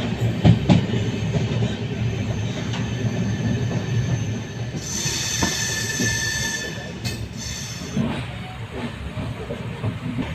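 Passenger train running on the rails: a steady low rumble with scattered clicks, and a high wheel squeal lasting about two seconds midway.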